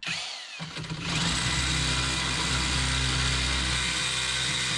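Electric drill boring a hole in the door's metal, speeding up over about the first second, then running steadily under load until it stops near the end.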